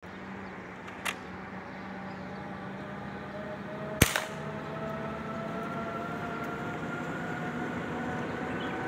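A single rifle shot about four seconds in, one sharp crack with a short tail, and a fainter click about a second in. Beneath them a steady hum runs on, slowly rising in pitch.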